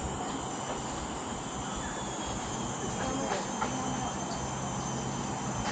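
Tropical forest ambience: insects droning with steady high-pitched tones, over faint voices of walkers and a few light clicks from the metal boardwalk around the middle.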